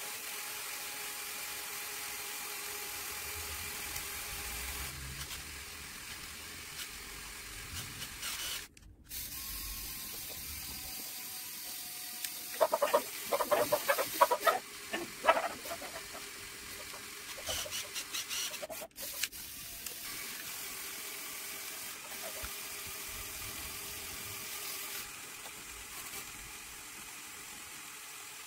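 Small electric motors and plastic gearing of a motorized Lego Technic truck-crane model whirring steadily as the crane's main arm is raised. A burst of loud, irregular clattering comes about halfway through, and the sound drops out briefly twice.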